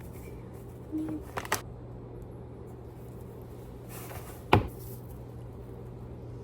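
Kitchen handling noises: a few light clinks and knocks of dishes or utensils about a second in, then one sharp knock about four and a half seconds in, over a steady low hum.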